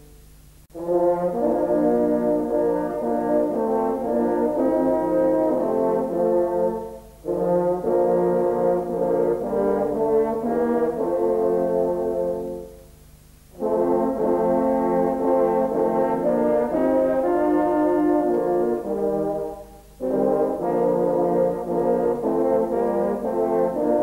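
Brass ensemble playing slow, chordal music with several held notes at once, in phrases of about six seconds separated by short breathing pauses.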